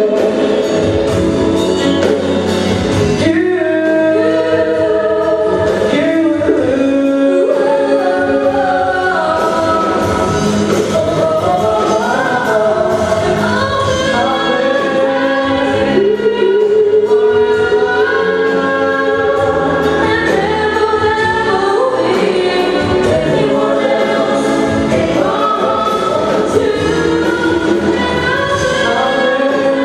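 Live band music with several voices singing together over it, sustained and without a break.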